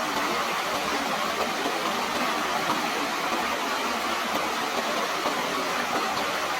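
Running water rushing steadily, an even, unbroken hiss without pauses.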